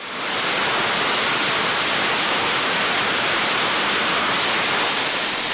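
F/A-18F Super Hornet's twin jet engines running at high power on the carrier catapult, waiting to launch: a loud, steady, even rush of noise that fades in at the start and turns a little hissier near the end.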